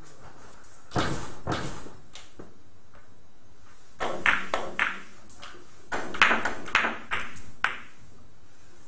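Billiard balls clicking sharply against each other, with several hard clacks in three clusters: about a second in, around four to five seconds, and again from six to nearly eight seconds.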